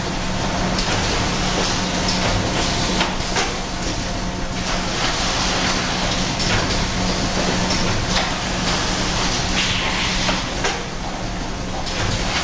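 Automatic carton packing line running: a steady machine hum and conveyor noise, with irregular mechanical clacks and knocks as cartons are moved along the rollers and through the packing machine.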